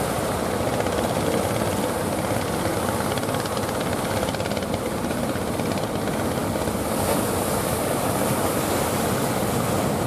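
Fishing boat engines running steadily under way, a fast, even chugging mixed with the wash of breaking waves.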